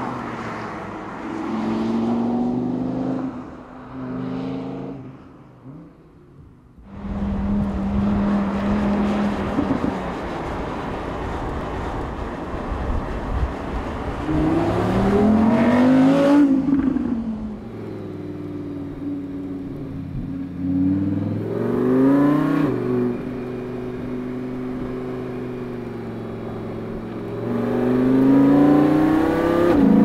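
Audi R8 V10 Spyder's naturally aspirated 5.2-litre V10 engine and exhaust as the car is driven hard: the engine note climbs in pitch under acceleration and drops back off throttle several times. It dips quiet about six seconds in.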